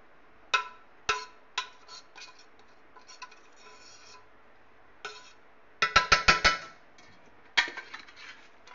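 A metal spoon clinking and scraping against a metal cooking pot as rice is spread in layers: single ringing taps, light scrapes, then a quick run of about six taps about six seconds in, the loudest sounds here.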